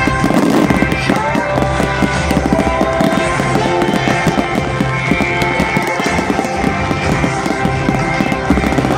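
Fireworks crackling and popping in rapid succession over loud, continuous music from the display's soundtrack.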